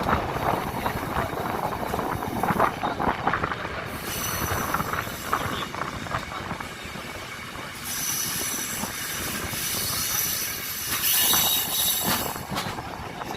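Train running on the rails, with a continuous rumble and a high metallic squeal from the wheels that is strongest in the second half.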